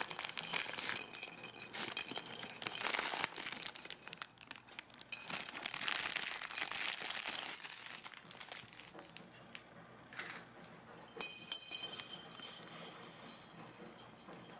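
Plastic toy packaging being crinkled and torn open by hand, a dense crackling for roughly the first eight seconds, then dying down to softer, scattered rustles.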